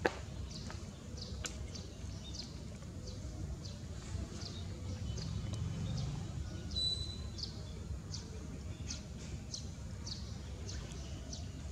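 A bird chirping over and over, short high falling chirps about twice a second, with one longer held note about seven seconds in, over a low background rumble.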